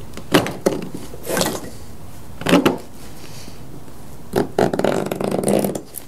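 Metal hand tool scraping and knocking against a wooden beehive frame while prying out its plastic foundation: several separate sharp scrapes and knocks, then a longer stretch of rapid scraping near the end.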